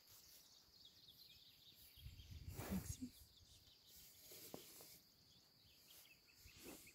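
Near silence, with soft snuffling from a horse's muzzle close to the microphone, a faint low rumble two to three seconds in and a small click about halfway through.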